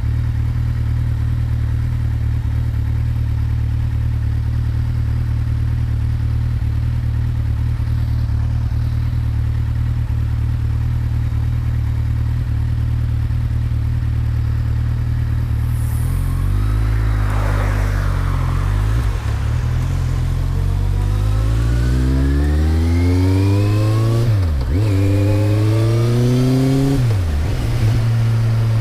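2008 Kawasaki Z1000's inline-four engine through a Mivv GP exhaust with the dB killer fitted, idling steadily. About sixteen seconds in, the engine speed changes and then climbs in a long rise, broken by two short dips near the end.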